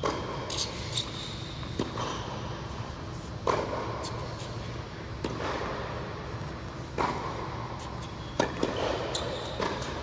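Tennis rally: a tennis ball struck by rackets and bouncing on the court, a sharp pock about every one and a half to two seconds, echoing in an indoor tennis hall. A few short high squeaks come between the hits.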